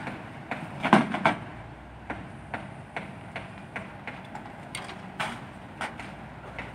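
A run of sharp knocks and clicks over a low steady engine hum, with a few loud knocks about a second in and then single clicks roughly two a second.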